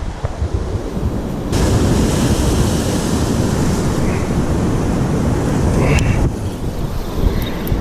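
Sea waves washing over rocks, with heavy wind buffeting the microphone. A louder surge of surf comes in about a second and a half in and drops away suddenly near six seconds.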